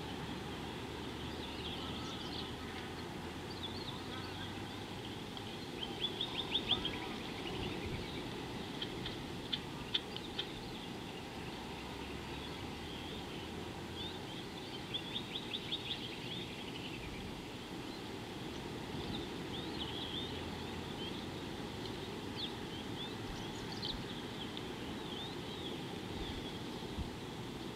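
Wild birds calling over steady low outdoor background noise: scattered short high chirps, with two quick rattling trills about six and fifteen seconds in.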